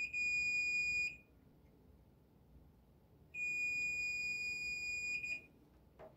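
Fluke digital multimeter's continuity beeper giving a steady high beep twice, about a second and then about two seconds, as the probes bridge a transformer winding: the winding is continuous, not broken. A light click near the end.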